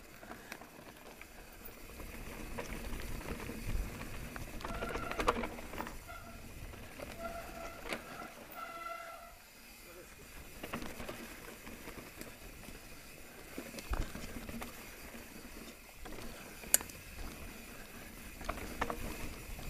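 Mountain bike riding fast down a loose, dry dirt singletrack: tyres rolling over the dirt with the chain and frame rattling, and sharp knocks from bumps, a loud one about 14 seconds in and another near 17 seconds.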